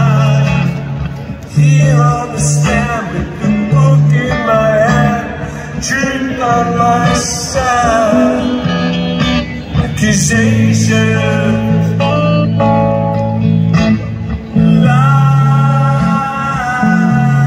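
Live band music through a concert PA: a male voice singing over guitar accompaniment with steady held bass notes.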